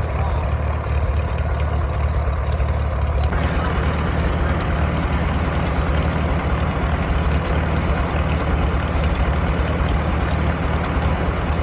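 The 1947 Farmall H tractor's four-cylinder engine running steadily, turning harsher about three seconds in.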